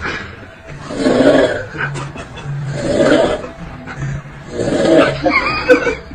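Loud snoring in a steady rhythm, one snore about every two seconds, with a brief wavering high tone near the end.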